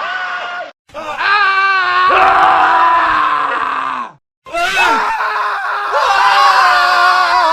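Men screaming, one scream after another, spliced together: three separate screams, each cut off abruptly with a brief silence before the next, about a second in and again about four seconds in.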